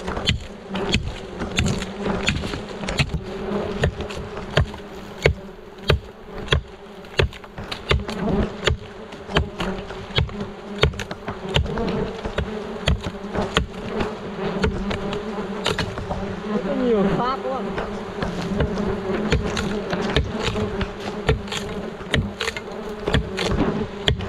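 A swarm of hornets buzzing close around, a steady droning hum with one louder insect sweeping past about two-thirds of the way through. Frequent sharp taps and knocks sound over the buzz.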